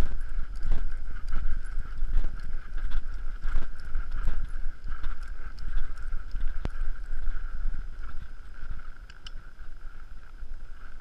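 Horses walking on a sandy trail: soft, irregular hoof thumps over a low rumble of movement on the horse-mounted camera, with a steady high hum behind. The hoofbeats grow quieter after about eight seconds.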